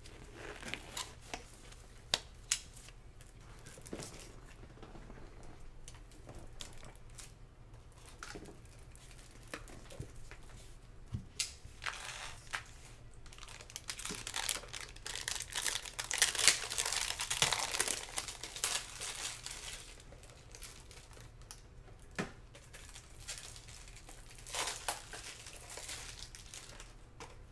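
Silver foil trading-card pack crinkling and tearing as gloved hands open it, with scattered clicks and rustles; the densest, loudest crinkling comes about halfway through.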